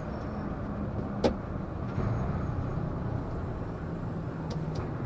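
Semi-truck heard from the cab while driving: steady engine drone and road noise, with one sharp knock about a second in.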